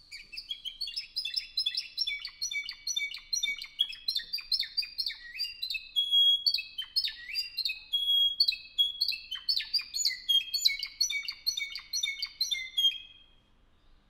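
Canario Cantor Español (Spanish song canary) singing: a long song of rapid, repeated high notes in one phrase after another, ending about a second before the end.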